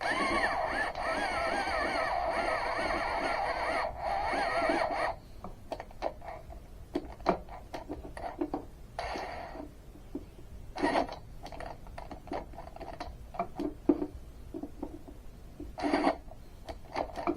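Electric drill running with a larger bit in a plate for about five seconds, its motor pitch wavering as it loads up, then a few short bursts on the trigger. The drill is struggling, seeming not to have enough power for the bigger bit.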